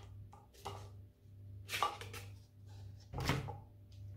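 Plastic plant pots knocking and scraping against each other as they are handled and nested: about four separate knocks, the loudest about three seconds in.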